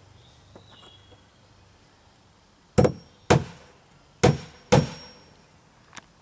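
Hammer driving nails into a wooden deck plank: four sharp strikes in two pairs, the strikes in each pair about half a second apart.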